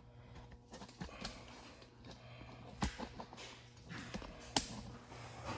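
Faint handling noise: a few light clicks and knocks, the sharpest about three and about four and a half seconds in, over a low steady hum.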